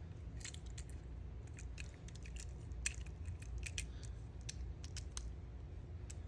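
Faint, irregular small clicks and ticks, a dozen or more, of tiny diecast model truck wheels and axles being handled and fitted by hand, over a low steady hum.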